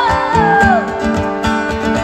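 A woman singing with her own strummed acoustic guitar. Her sung note glides down and ends about halfway through, and the strummed chords carry on in an even rhythm.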